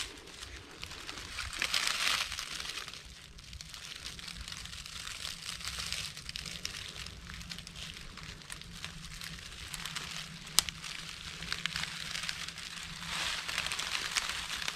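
Footsteps crunching and rustling through dry, frosted leaf litter at an uneven walking pace, with a single sharp click about ten and a half seconds in.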